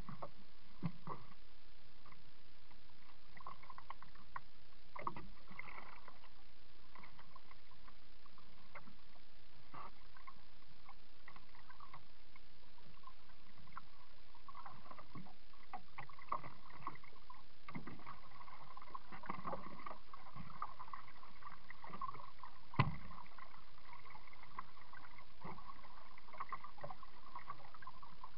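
Paddling a Pelican 80 kayak: irregular paddle splashes and water lapping against the plastic hull, picked up by a small waterproof camera mounted on the boat. A single sharp knock comes about two-thirds of the way in.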